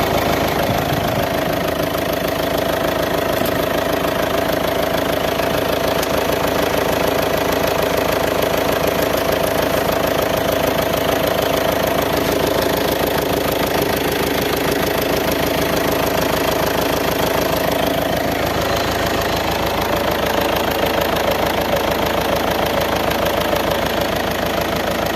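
Chevrolet Cruze 2.0 VCDI four-cylinder turbodiesel running steadily at idle with a fast clatter and a steady whine that drops lower in pitch about 18 seconds in. This is the strange engine sound the owner is showing.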